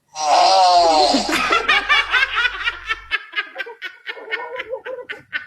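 Laughter in quick rhythmic pulses, about five a second, loud at first and fading toward the end.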